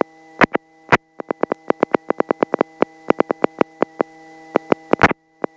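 Electrical interference on a helicopter headset intercom: a steady hum of several tones cut through by rapid clicking, about seven clicks a second, with a louder crackle about five seconds in. This is the kind of noise that makes the voice on the intercom break up.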